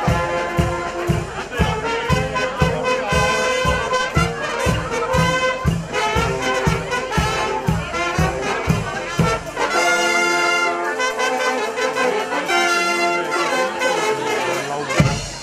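Live brass band playing a tune: trumpets, trombones and saxophones over a drum kit's steady beat. About ten seconds in the drums and low bass drop out and the horns carry on alone in held chords.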